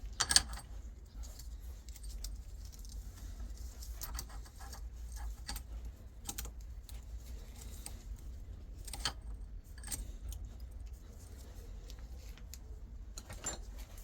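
Metal gearbox parts and tools being handled: scattered light metallic clicks and clinks at irregular intervals, the sharpest just after the start, over a low steady hum.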